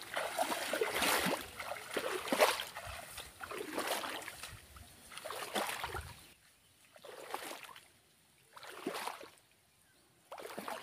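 Footsteps wading through shallow water, a splash with each stride, coming about once a second and then thinning to a few quieter steps about halfway through.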